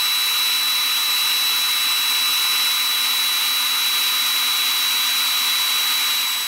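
Electric drill running steadily with a thin high whine as its bit bores a hole through a leather belt strap. It starts to wind down near the end.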